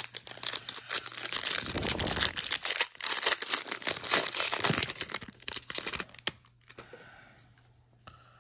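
Wrapper of a baseball-card pack being torn open and crinkled by hand: a dense crackling rip for about six seconds that stops abruptly, followed by faint rustling.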